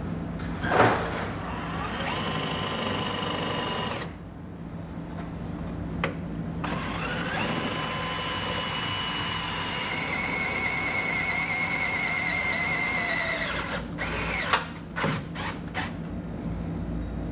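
Cordless drill boring a pilot hole through the steel truck frame: it runs for about two seconds, stops briefly, then runs again for about seven seconds. A few clicks and knocks of handling follow near the end.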